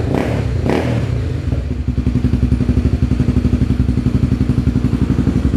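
Honda CB300R single-cylinder engine idling through an aftermarket Coyote Five exhaust tip on the stock header: a loud, deep, evenly pulsing idle. Two brief sharp knocks sound within the first second.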